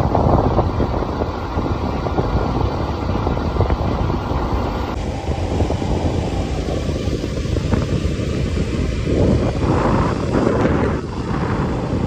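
Wind buffeting the microphone over the rumble of a vehicle travelling along the road. The high hiss drops abruptly about five seconds in, and a few louder gusts come near the end.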